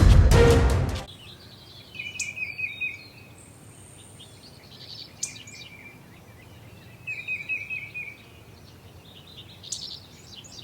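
Background music ends about a second in; then a songbird sings four short trilled phrases a couple of seconds apart.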